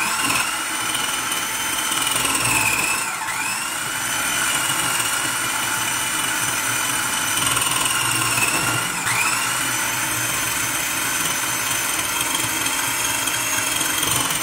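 Kenwood food processor motor running as it slices potatoes. Its steady whine dips in pitch and recovers twice, about three seconds in and again about nine seconds in.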